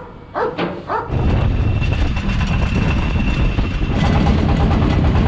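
A dog barks twice, then about a second in a loud, steady low rumble of engine noise and wind takes over.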